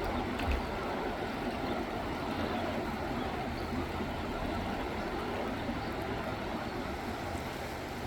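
Klamath River flowing, a steady rushing of water, with a brief low thump about half a second in.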